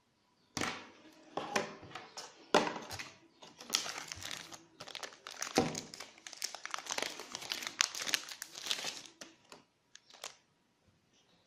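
Plastic packaging crinkling and rustling as it is handled, in dense crackly bursts for about nine seconds, then a couple of isolated ticks.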